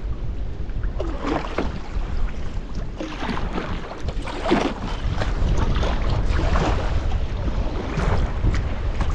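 Sea kayak paddle dipping into the water every second or two, with splashes and gurgles along the hull, over a steady low rumble of wind on the microphone.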